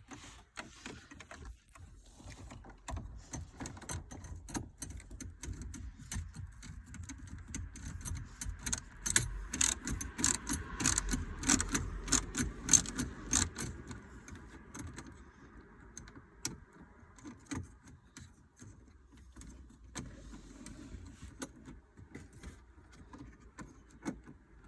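Small screws being worked out of plastic dashboard trim with a hand tool and handled: a run of light metal and plastic clicks and rattles, busiest in the middle.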